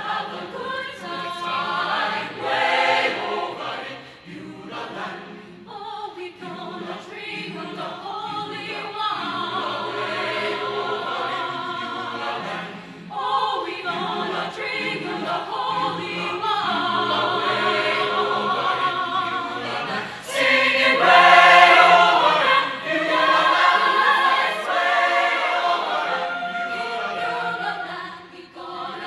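Mixed chamber choir of young men and women singing an arrangement of a spiritual, the voices swelling loudest about two-thirds of the way through.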